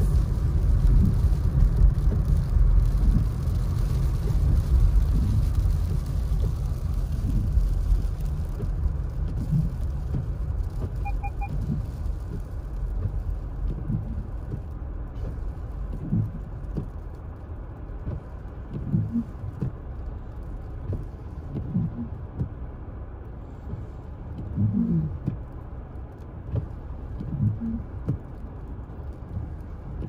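Low road and engine rumble heard inside a car driving on a snow-covered road, easing off as the car slows in traffic. There is a short double beep about a third of the way in.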